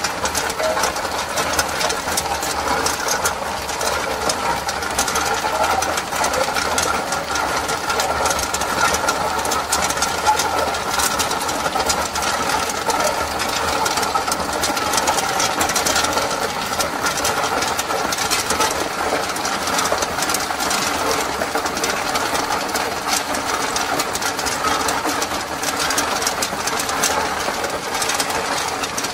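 Tube ice machine harvesting: clear ice tubes clatter continuously into a plastic tub in a dense, irregular patter of small clicks, over the steady running of the machine.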